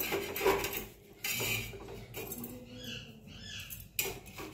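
Metal kitchen tools, first a flat spatula and then steel tongs, knocking and scraping on an iron tawa while a roti is handled on it, with a few sharp clinks. About three seconds in comes a short run of faint, high, squeaky chirps.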